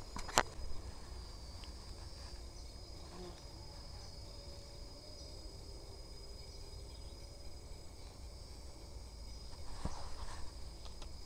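Insects chirring in a steady high drone. A sharp click comes about half a second in, and there is brief rustling near the end.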